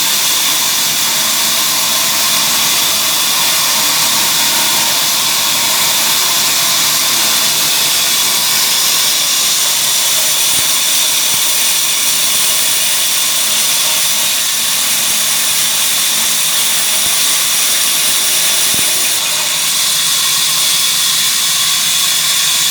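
Engine-driven wood-sawing machine running with a loud, steady noise that holds evenly throughout.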